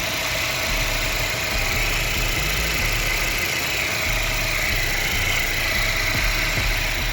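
Audi Q5 engine idling steadily with a newly installed turbocharger.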